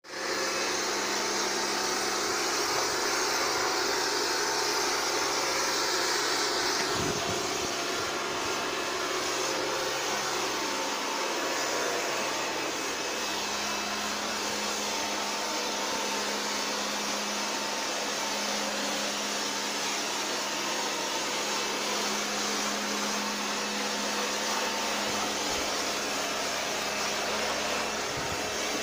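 Mini high-pressure washer running steadily: the electric pump motor hums under the hiss of the water jet spraying the scooter. The hiss softens a little after about seven seconds.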